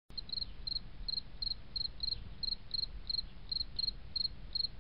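Cricket chirping steadily, about three short chirps a second, each a quick pulse of two or three notes, over a faint low hum.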